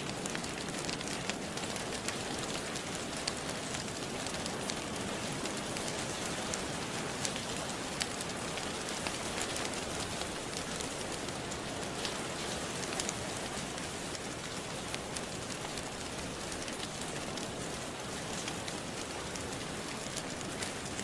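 Steady rain, an even hiss, with many small sharp crackles and pops scattered through it from a wood fire burning in a fireplace.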